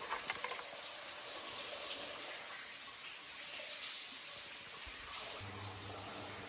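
Faint water sounds: a few small splashes right at the start, then a steady, even trickling hiss.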